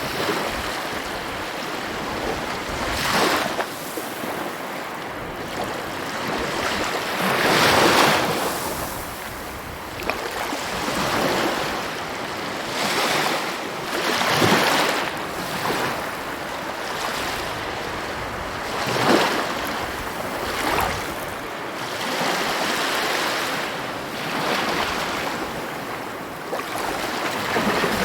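Sea waves breaking and washing ashore, the surf swelling louder every few seconds over a steady rush of water.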